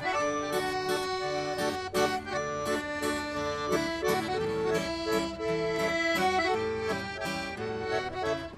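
Accordion playing the instrumental introduction to an Italian folk song, held chords that change every half second or so, with an acoustic guitar strumming along.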